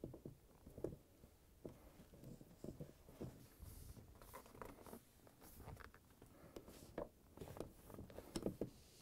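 Faint handling sounds, scattered light clicks and rubs, as plastic water-line tubing is fed through a refrigerator's lower door hinge, a little louder near the end.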